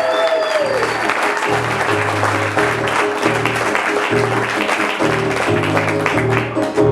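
Studio audience applauding and cheering, with a few whoops in the first second, over walk-on music with a pulsing bass line.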